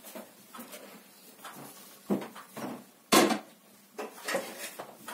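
Plastic seedling tray and small black plastic pots being shifted and set down: a few light plastic knocks and clatters, the loudest about three seconds in.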